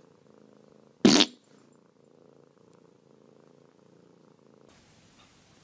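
Domestic cat purring quietly and steadily, with one short, loud, sharp sound about a second in.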